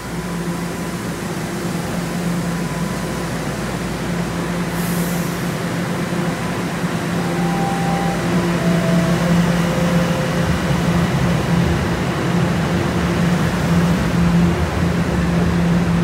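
TTC Toronto Rocket subway train standing at the platform with a steady low hum. About seven seconds in comes a descending three-tone door-closing chime, and from about ten seconds the train starts pulling out, with a heavier rumble building. A short hiss of air comes about five seconds in.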